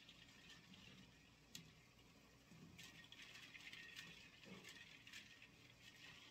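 Faint swishing of ice water and clinking ice cubes in a stainless steel bowl as a red sea bream fillet, its skin just scalded with hot water, is chilled in it by hand. The sound comes in two stretches, near the start and again about three to four seconds in, with a single sharp click between them.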